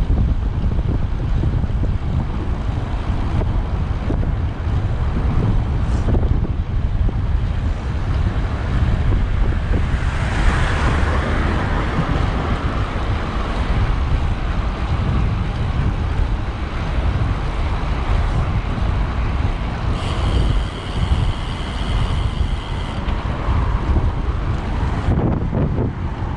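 Wind buffeting the microphone of a camera on a moving road bike, with a steady low rumble of road and traffic noise. About ten seconds in, a louder rush of passing-traffic noise swells for a few seconds. A faint high whine is heard briefly around twenty seconds in.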